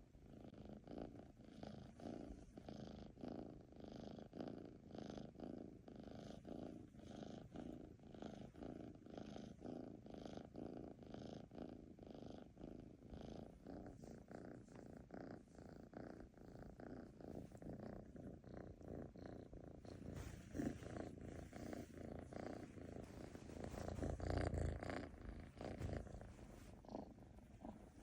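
Domestic cat purring close to the microphone in an even rhythm of pulses, about two a second, with a louder low rumble near the end.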